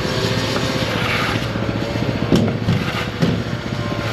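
Engine-driven construction machinery running steadily, with two sharp knocks a little past halfway, about a second apart.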